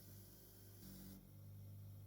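Faint steady low electrical hum.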